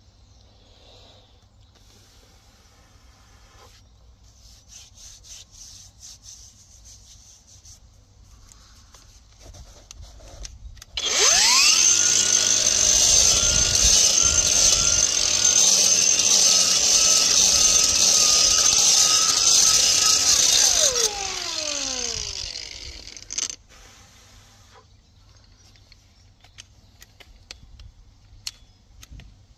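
Angle grinder spinning up about a third of the way in and grinding down the concrete benching of a manhole channel for about ten seconds. It then winds down with a falling whine. One knock follows shortly after.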